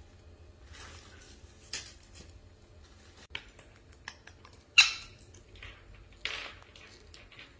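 Pet parrots making sporadic short calls, clicks and rustles, the loudest a sharp call just before five seconds in.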